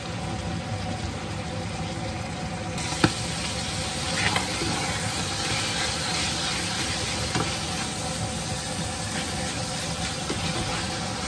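Chicken livers, onions and garlic sizzling steadily in a frying pan, stirred with a black plastic slotted spatula. There is a sharp tap of the spatula against the pan about three seconds in, and a few lighter scrapes and knocks later.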